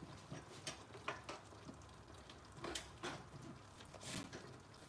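Pan of whole snapper, okra and peppers simmering: faint, irregular pops and crackles over a low hiss.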